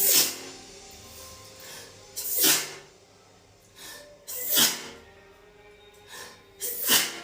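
A woman sneezing over and over in a sneezing fit: four loud sneezes about two seconds apart, with quieter short breaths in between.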